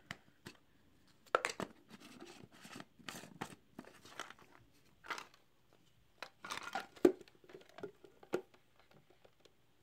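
Crinkling of a plastic cookie sleeve and Oreo cookies knocking and clattering into a clear plastic grinder jar, in short irregular bursts with a few sharp knocks, the loudest about seven seconds in.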